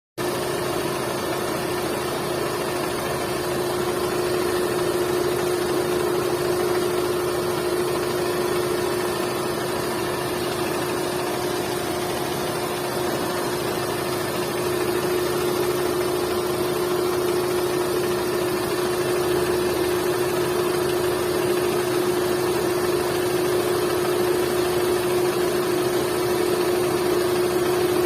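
Hyundai Santro 1.1-litre four-cylinder petrol engine idling steadily, with a steady tone running over it: the abnormal engine noise the owner is showing. The sound grows a little louder about halfway through.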